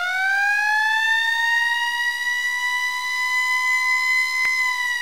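Siren-like sound effect of a channel logo intro: a single tone that finishes rising in pitch, holds steady, then dips slightly near the end, with a brief click about four and a half seconds in.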